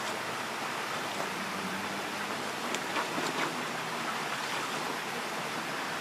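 Shallow creek water running steadily over rocks. A few short, sharp sounds come around the middle.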